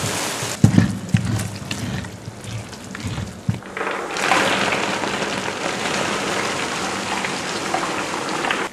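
Almonds poured from a wooden tray into a copper pan of cooked honey, a steady rattling rush like rain that starts about four seconds in, after a few wooden knocks. This is the almonds going into the honey for nougat.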